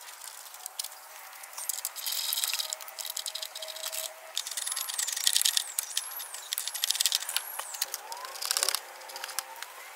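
Plastic fender liner and splash guard being worked loose by hand: bursts of rapid clicking and rattling a second or two apart. A high, falling whistle repeats about once a second in the middle.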